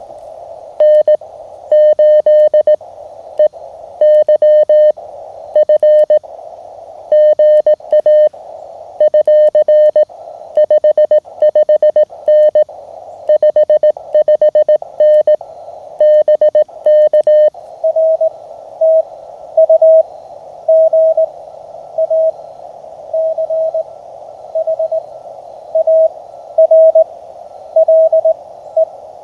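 Morse code (CW) tones from a Mountain Topper (MTR) QRP transceiver over steady receiver hiss. For the first seventeen seconds or so a brighter keyed tone sends. Then a slightly higher-pitched Morse signal takes over with a different rhythm.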